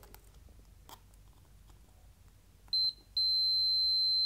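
Multimeter continuity tester: a few faint probe clicks, then a short high beep about two and a half seconds in, then a steady unbroken beep from about three seconds. The steady tone marks solid electrical contact through the bare aluminium of a freshly ground countersunk hole.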